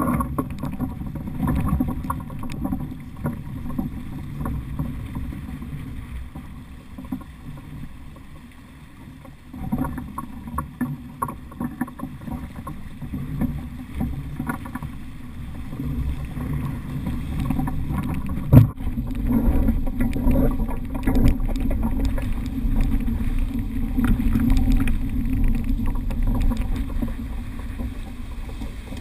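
Water rushing and splashing along the hull of a Laser II sailing dinghy under way, heard close up from a camera mounted on the boat as a low, uneven rush that grows louder in the second half as the boat picks up speed. A single sharp knock sounds about two-thirds of the way through.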